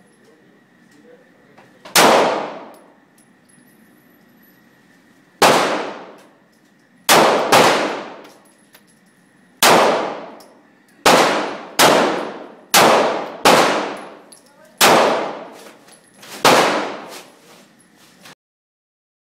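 Eleven handgun shots fired one at a time at an indoor shooting range, each a sharp crack with about a second of echo off the enclosed concrete range. The shots come at uneven gaps of one to three seconds, some in quick pairs. The sound cuts off abruptly near the end.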